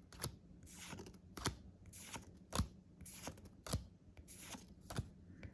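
Pokémon trading cards being flipped through one at a time: light papery sliding with a short crisp snap of card stock about once a second.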